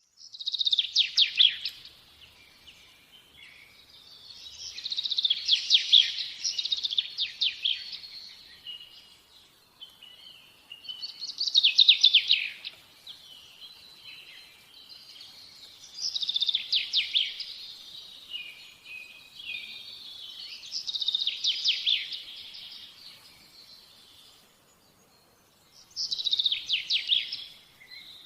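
A songbird singing in repeated phrases of rapid, high trilling notes, about six phrases separated by short pauses.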